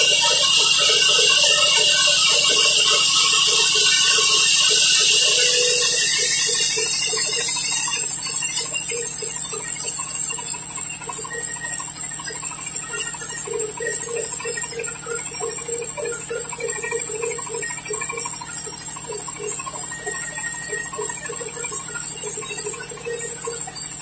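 Large sawmill band saw running, its blade cutting lengthwise through a mahogany plank with a loud, steady high hiss over a low motor hum. About seven seconds in, the hiss thins and turns a little quieter.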